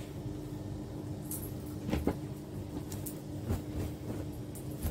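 Clothes being handled: a few soft knocks and rustles over a steady low hum.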